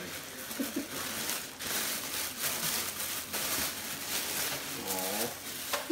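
Plastic rustling and crinkling as a pillow in clear plastic wrap is drawn out of a black plastic gift bag, in uneven bursts of handling.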